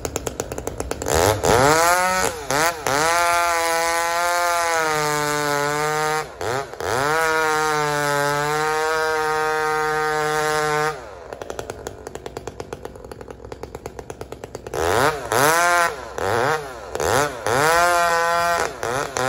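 Two-stroke Dolmar chainsaw, just fitted with a freshly hand-filed worn chain, revving up and held at high revs in two long runs, then dropping to idle about eleven seconds in. Near the end it gets a string of short throttle blips.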